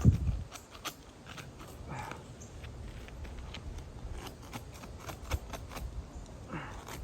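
Asphalt shingles being pried loose, their tar seal strips tearing with scattered sharp clicks and scrapes after a heavy thump at the start, with wind rumbling on the microphone.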